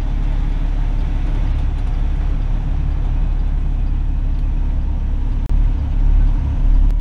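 Semi-truck's diesel engine running with a steady low drone, heard from inside the cab. Near the end come a few heavy low thumps and rumbles.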